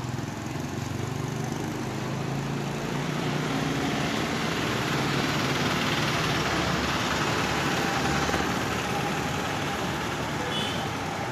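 Street traffic: vehicle engines running under a steady broad hiss of street noise that swells a little in the middle.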